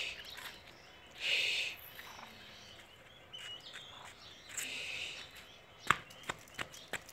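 Muscovy duck hen with her ducklings: three short hoarse hisses about a second and a half to three seconds apart, with a faint peep between them, then a few sharp taps near the end, the loudest about six seconds in.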